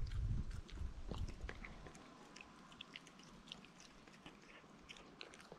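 Border Collie puppy chewing and biting at something on the ground: a run of small, irregular crunches and clicks, over a low rumble that fades out about two seconds in.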